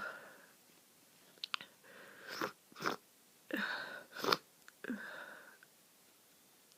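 Congested nose sniffing: several short, sharp sniffs with wet, noisy breaths between them, the sound of a nose blocked by flu.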